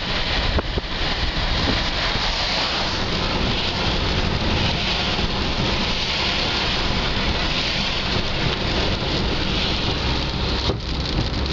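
Heavy rain on a moving car, heard from inside the cabin: a steady hiss of rain hitting the roof and windshield mixed with tyres running on the wet road.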